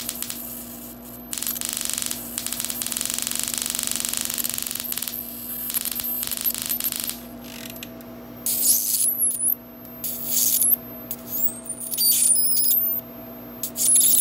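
High-voltage arc from a homemade single-transistor flyback driver with a voltage tripler, drawn with a screwdriver probe: a dense, fast crackling buzz over a steady high-pitched whine, broken off briefly near the start. From about eight seconds in the arc turns louder and irregular, coming in spurts whose pitch wavers.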